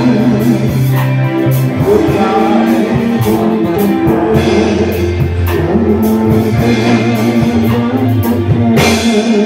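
Worship music playing: sustained bass notes that change every second or two under a steady drum-kit beat.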